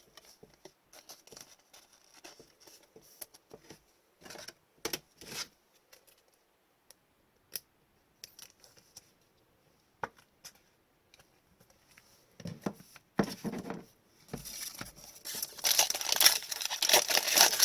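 Trading cards being handled, with scattered soft clicks and slides of card on card; from about 14 seconds in, a card pack wrapper tearing open and crinkling loudly.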